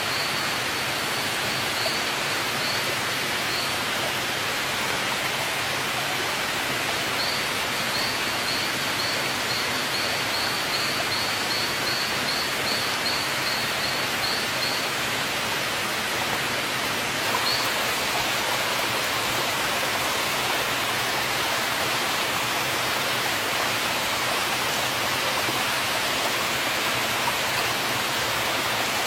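Steady rushing of flowing water, an even wash of noise with no change. A run of faint high chirps, about two or three a second, comes in near the start and again through the middle.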